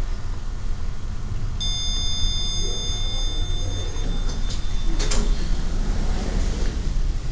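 Schindler lift button beep: one steady high electronic tone, held for about three seconds, starting under two seconds in. A sharp click follows about five seconds in, over a steady low rumble.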